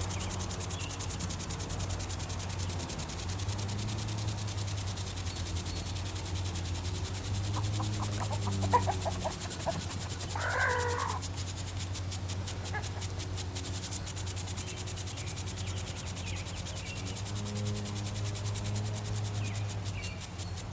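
Steady low motor hum throughout, with a brief animal call about ten seconds in, just after a short string of quick chirps.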